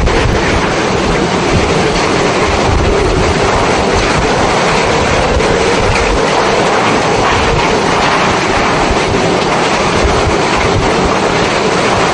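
Hurricane-force wind and driving rain, a loud, steady rush of noise with no let-up.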